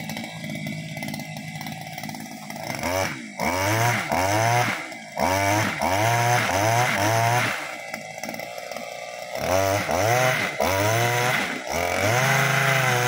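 Small petrol engine of a Cantas motorized oil palm pole cutter running, then revved up and down in short bursts about once a second from around three seconds in, with a pause of a couple of seconds near the middle.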